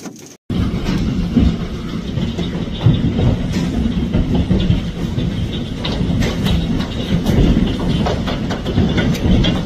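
Hailstorm: a dense, steady clatter of hailstones pelting the ground and nearby surfaces, with sharp individual clacks all through. It starts abruptly just under a second in, after a brief silence.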